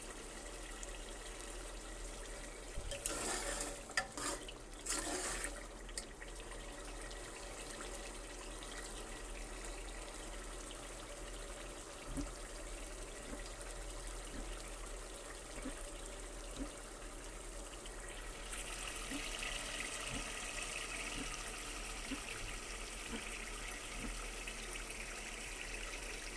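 Meat curry sizzling and bubbling in a metal pot as it is fried down in its oil (the bhuna stage), with a few loud scraping strokes of a metal ladle against the pot a few seconds in. About two-thirds of the way through the sizzle turns brighter and louder.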